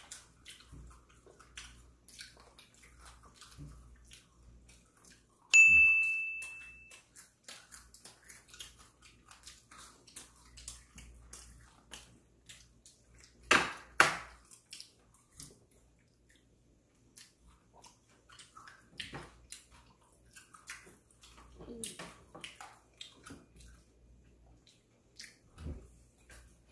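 Eating and handling crispy fried chicken at a table: many small clicks and crunches. About five seconds in, tableware is struck once with a sharp clink that rings briefly, and near the middle there are two louder short noises.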